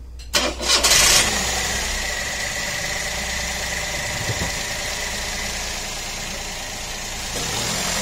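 Car engine starting up, catching loudly about half a second in, then running at a steady idle with a faint steady high whine over it.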